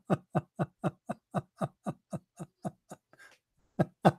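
A man laughing in a long run of short "ha" bursts, about four a second. He breaks for a breath about three seconds in, then starts again loudly.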